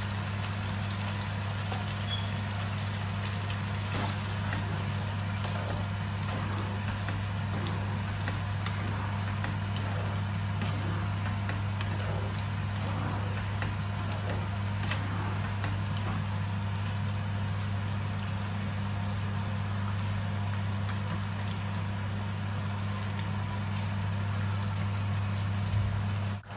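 Thick paneer curry simmering and bubbling in a nonstick frying pan while single cream is poured in and stirred through with a spatula, over a steady low hum.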